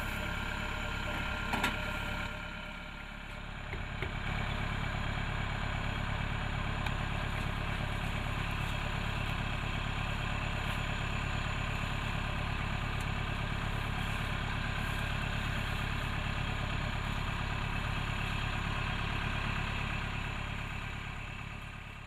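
Diesel engines of a rice combine harvester and farm tractor running steadily at idle. There is a short knock about a second and a half in, and the sound fades out near the end.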